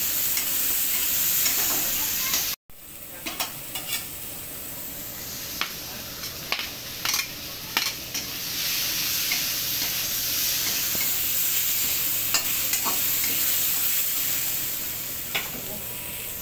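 Oil sizzling in a kadai as a spatula stirs and scrapes through frying spice paste and potato slices, with a scattering of sharp taps of the spatula against the pan. The sound cuts out for a moment about two and a half seconds in.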